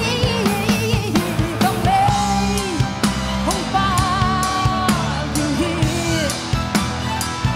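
A woman singing a song live with a band of electric guitar, keyboard and drum kit, her held notes wavering with vibrato over a steady drum beat.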